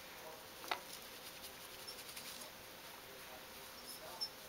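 Quiet room with a faint hiss and a few faint clicks, one just under a second in and one near the end.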